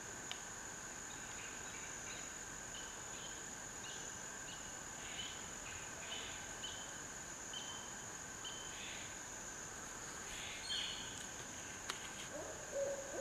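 Steady high drone of crickets or other insects in woodland, with short repeated chirps of a bird; near the end an owl begins hooting, low drawn-out hoots that get louder.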